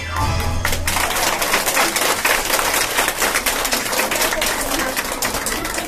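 A song ends just after the start, then an audience applauds, many hands clapping steadily, with voices mixed in.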